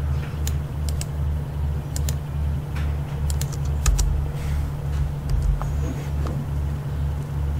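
Scattered keystrokes and clicks on a computer keyboard and mouse while code is edited, over a steady low hum that pulses a few times a second.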